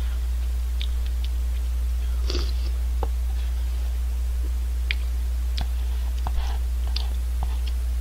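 Eating sounds of instant cup ramen: chewing, with a short slurp about two seconds in and scattered small clicks from the utensil in the cup, over a steady low electrical hum.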